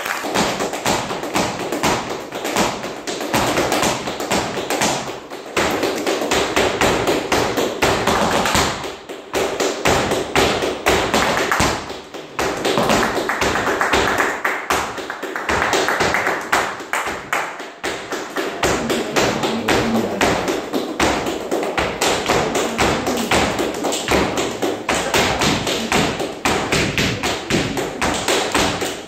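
Flamenco zapateado: a dancer's shoes striking the stage floor in rapid, driving footwork, with brief pauses, over hand-clapping (palmas).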